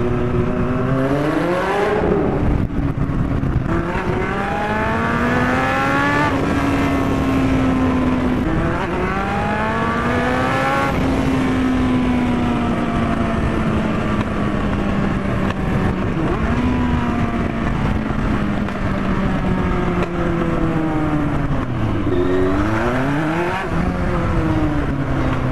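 Yamaha FZR1000's inline-four engine, its exhaust unsilenced, accelerating hard through the gears: the pitch climbs and drops at each shift several times, then holds and slowly eases off, with a quick dip and rise near the end. A steady rush of wind runs under it.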